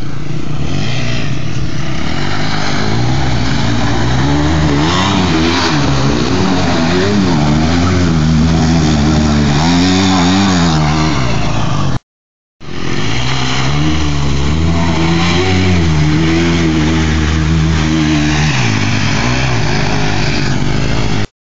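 Dirt bike engines revving, their pitch rising and falling again and again as the bikes ride through shallow water and mud. The sound cuts out briefly about halfway through and again near the end.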